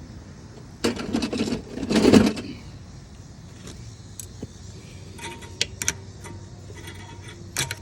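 Two rough scraping, tearing bursts as a paper or cardboard patch is picked out of a hole in a small engine's crankcase, followed by a few light clicks. The hole is where a busted connecting rod broke through the block.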